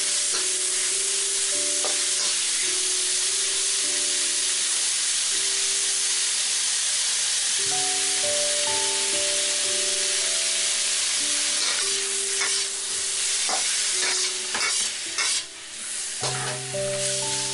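Diced chicken and shrimp sizzling in hot oil in a wok while being stirred with a metal utensil, with several sharp scrapes and taps of metal on the wok near the end. Soft background music plays underneath.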